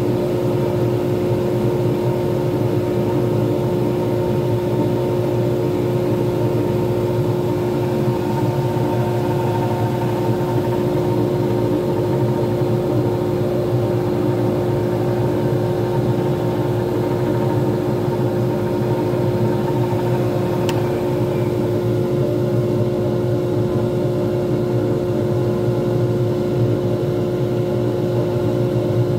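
Small wood lathe running at a steady speed, its motor giving an even hum with a strong steady tone, while the resin pen blank spins on the mandrel during hand polishing. One small click about twenty seconds in.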